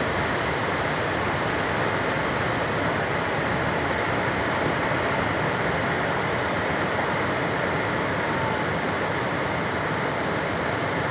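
River in flood rushing steadily, an even, unbroken noise with no separate knocks or impacts.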